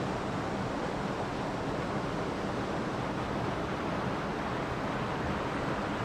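Steady rushing water: an even, continuous noise with no swells or breaks.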